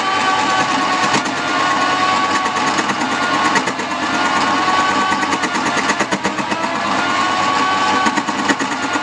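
Wood-turning lathe running, with a turning tool cutting the spinning wood: a steady motor whine over a fast, rasping chatter. The whine sags and recovers slightly a couple of times.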